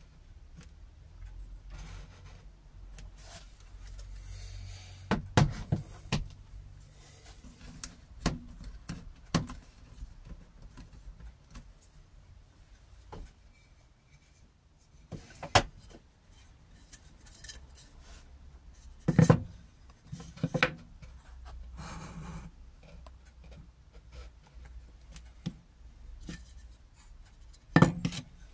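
Scattered knocks, clicks and rubs from objects and wood pieces being handled on a workbench, a few of them sharp and loud.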